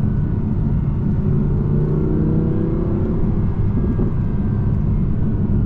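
Audi R8 V10 Plus driving along a road, its naturally aspirated V10 engine and the tyre noise making a steady low drone. The engine note rises a little and falls back in the middle.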